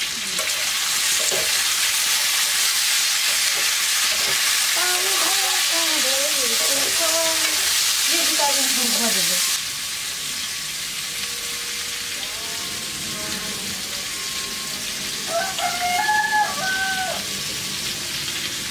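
Long beans and bitter gourd sizzling as they fry in hot oil in a pan; the sizzle drops suddenly to a quieter level about ten seconds in.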